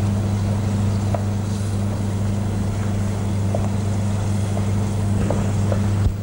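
Steady low electrical hum, with a few faint light clinks.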